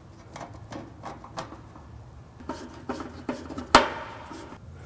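Sheet metal screws being hand-driven with a screwdriver to fix an intake splitter onto a dust collector's inlet: scattered light clicks and scrapes of the screwdriver and fitting, with one sharp knock near the end.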